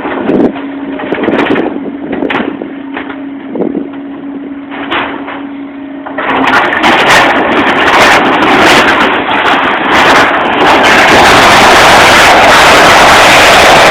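Barn demolition: a steady machine hum with scattered knocks and cracks, then from about six seconds in a loud, continuous crashing and rumbling that builds to a peak near the end.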